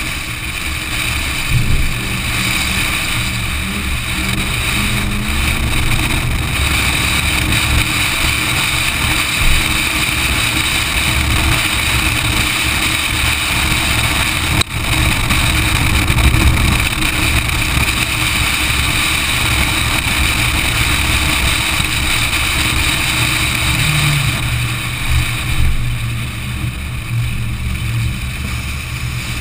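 V8 Supercar's V8 engine under race load, heard from a camera mounted on the car's outside, with heavy wind noise on the microphone. The engine note climbs and falls with the gears and corners, and there is a momentary dip in the sound about halfway through.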